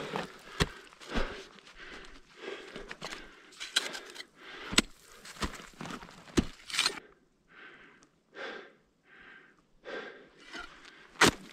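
Ice tools striking into rime ice in a string of sharp thuds and crunches. About seven seconds in they give way to the climber's heavy breathing, a short breath every half-second or so, and one more sharp strike comes near the end.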